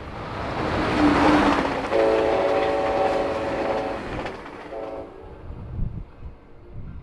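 A train passing at speed, its rumble building to a peak about a second in, then the locomotive's chime air horn sounding one long blast of about two seconds followed by a short blast; the rumble fades near the end.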